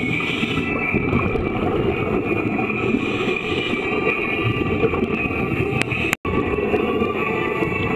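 Steady underwater rumble and hiss of a swimming pool picked up by an underwater camera, mixed with the bubbling of scuba divers exhaling through their regulators. The sound cuts out for an instant a little after six seconds.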